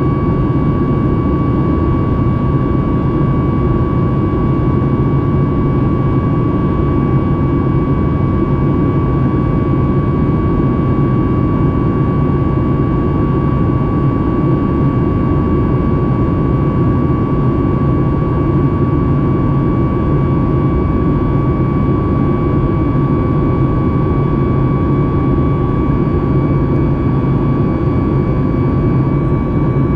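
Cabin noise of a Boeing 737 MAX 8 in flight, heard from a window seat beside the wing: the CFM LEAP-1B turbofans and airflow make a steady roar with a deep rumble, and a constant high whine runs over it.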